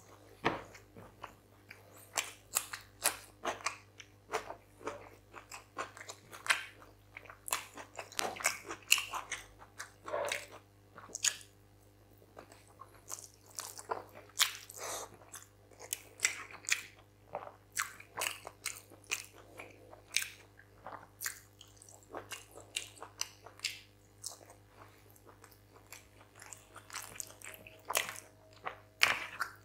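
Close-miked eating sounds of a man eating chicken curry and rice by hand: chewing and biting in an irregular run of short clicks, over a faint steady hum.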